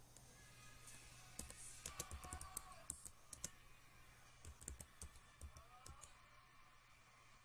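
Faint clicking of computer keyboard keys being typed, in two irregular runs: one starting about a second and a half in, the other around four and a half seconds.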